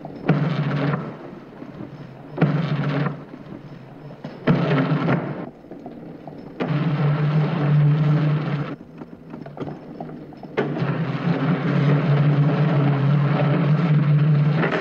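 Deep rumbling noise in short surges about every two seconds, each starting abruptly. It then lengthens into a longer surge and, from about ten seconds in, holds steady.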